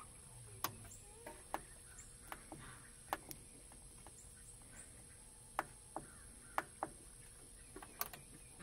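About ten sharp, separate clicks at uneven intervals from the rocker switch and keypad buttons of a Generac Nexus generator controller being pressed. There is no engine sound.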